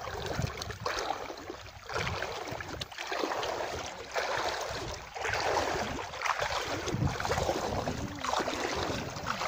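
Legs sloshing through shallow water while wading, a splash and swish with each stride about once a second.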